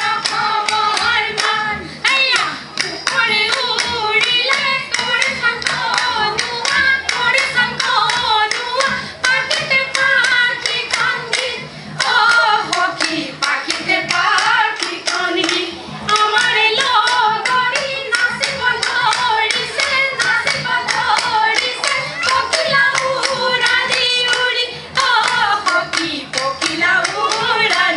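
Women's group singing a Bihu song in chorus, kept in time by steady rhythmic hand clapping, the accompaniment of a Jeng Bihu dance.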